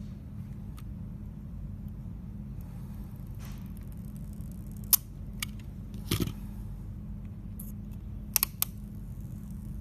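Small clicks and taps of a utility-knife blade and fingertips working at the edge of the plastic protective film on a battery charger's screen. There are a few clicks about halfway, a longer scrape just after, and a quick run of three clicks near the end, over a steady low hum.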